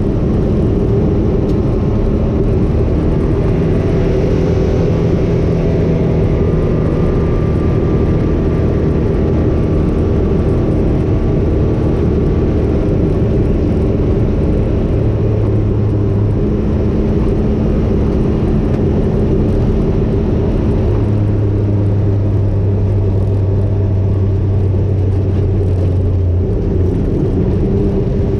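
Vehicle engine and road noise heard from inside the cab while driving on a dirt road: a steady hum whose pitch steps up and down a few times as the engine speed changes.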